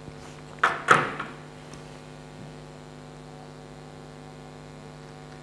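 Steady electrical mains hum. About a second in come two short knocks with a rustle, which are the loudest sounds.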